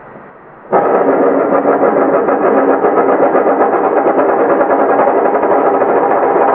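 A glass spinning on a wooden table, rattling fast and ringing in a dense, sustained whir. It comes in suddenly under a second in, after a fading ring.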